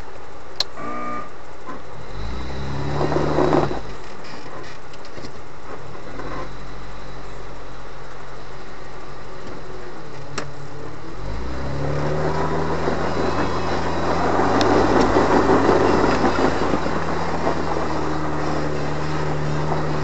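Toyota Land Cruiser 80 series engine pulling up a steep, loose dirt climb: the revs rise about two seconds in and fall back, then rise again near the middle and stay up. From then on the engine's note is joined by a dense, uneven crunching noise as the tyres scrabble over the loose stony surface, loudest a few seconds later.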